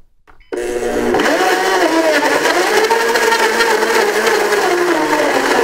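Countertop blender switched on about half a second in, running at high speed as it purees pumpkin, bananas and water. Its motor pitch wavers up and down as the thick mixture churns in the jar.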